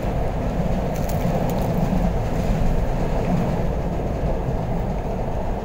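Steady rumble of a moving passenger train, heard from inside the carriage, with a few faint clicks about a second in.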